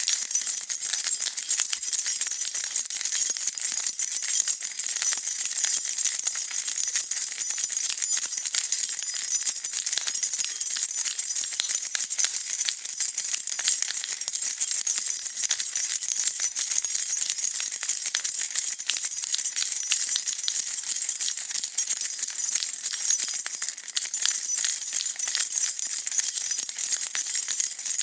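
A bunch of metal keys being shaken continuously, a steady dense jingling of keys clinking against each other.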